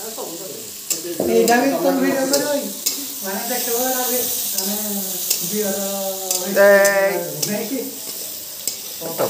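Green capsicum strips stir-frying in a metal kadai: oil sizzling, with a flat metal spatula scraping and clicking against the pan. A person's voice, louder than the frying, talks over it for most of the time.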